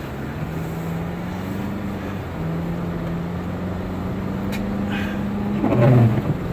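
Honda Element heard from inside the cabin, driving on a snow-covered road on winter tires: a steady engine drone under a constant wash of road and tire noise. There is a brief louder noise about six seconds in.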